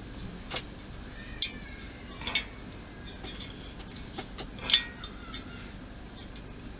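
A few light clicks and taps of small plastic model-kit parts being handled and fitted, about five in all, the loudest a sharp click a little under five seconds in.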